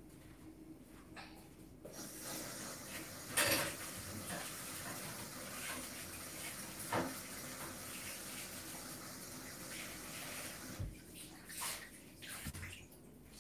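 Kitchen tap running steadily for about nine seconds, with a couple of knocks of dishes or objects against the sink, then shut off, followed by a few small knocks.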